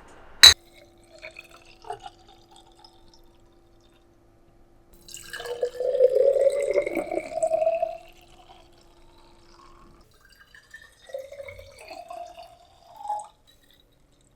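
Water running into a glass jar in two spells, the pitch rising each time as the jar fills, with a single sharp clink about half a second in.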